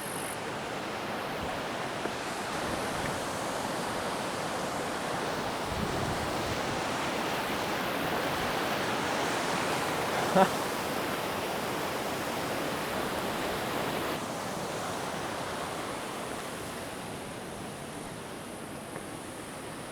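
Steady rush of water from a waterfall and river, a little louder through the middle and easing after about fourteen seconds, with one brief short sound about ten seconds in.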